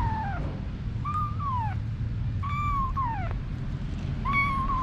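Kittens meowing: four calls, each about half a second to a second long, holding level and then falling in pitch at the end, over a steady low hum.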